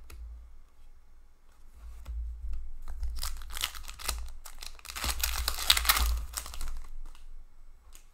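Foil wrapper of a hockey card pack torn open and crinkled by hand, in two spells of crackling, the second louder and longer.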